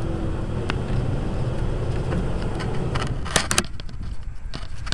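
Steady low rumble aboard a small electric boat under way, with a faint steady hum that fades about three seconds in. A few sharp clicks come around three and a half seconds in, after which the rumble eases off.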